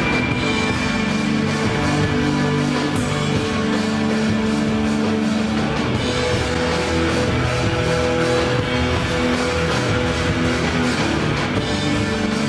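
Instrumental post-rock band playing live: electric guitars holding long sustained notes over a full drum kit, loud and dense.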